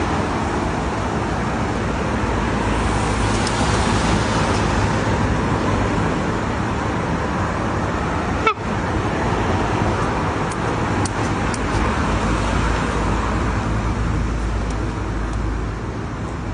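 Steady rushing background noise of road traffic, with a single sharp click about eight and a half seconds in.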